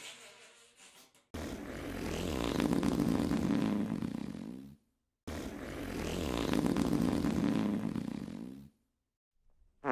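Fart sound effect, a long fart of about three and a half seconds, played twice in a row with a short gap between, as the tail of the previous one fades out; a brief sharp one starts at the very end.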